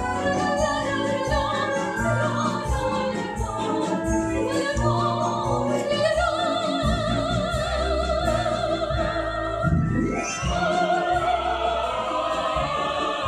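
Operatic singing with orchestral accompaniment. A high voice holds long notes with a wide vibrato, one from about six seconds in and another just after ten seconds.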